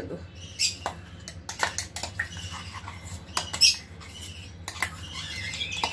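A steel spoon scraping and clinking against a stainless-steel mixer-grinder jar and the plate, scooping ground masala paste onto raw chicken: a run of short, irregular scrapes and clinks over a low steady hum.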